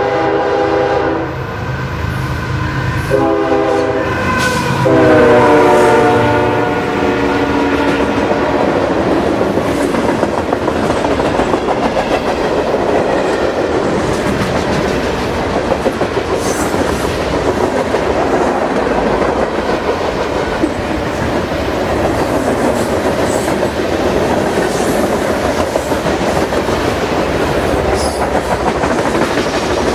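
Diesel freight locomotive's horn sounding for a grade crossing: the end of one blast, a short blast, then a longer one whose pitch sags as the locomotive passes. Then the steady rumble and clatter of the freight cars' wheels rolling over the rails.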